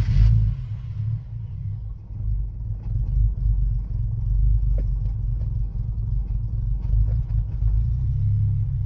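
Low, uneven rumble from a Nissan 370Z just after an attempt to start it, with almost nothing heard above the low end.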